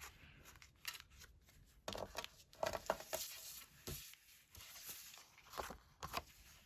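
Paper and adhesive tape being handled as a paper pocket is taped to a card: scattered rustles, crinkles and small taps at irregular intervals.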